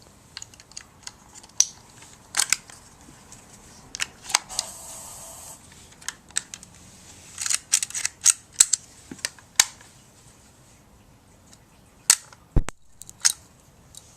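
Kodak Instamatic 100 camera being handled: a series of sharp plastic clicks and snaps, with a short scraping rasp about five seconds in and a heavier click with a thump near the end.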